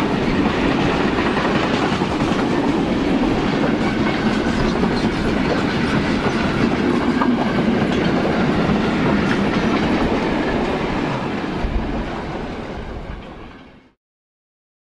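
Freight train wagons rolling past on the rails, a steady noise of wheels on track that fades away near the end and stops abruptly.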